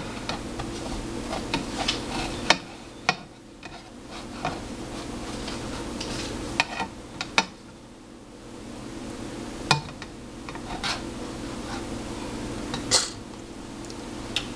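Slotted spatula scraping under and tapping against a nonstick frying pan as a crepe is loosened and folded, with several sharp clicks of the spatula on the pan. A steady low hum runs underneath.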